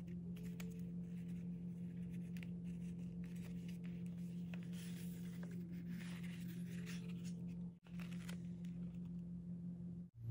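A metal paper clip being slid onto a notebook page and the paper handled: light clicks and paper rustling, busiest around the middle, over a steady low hum.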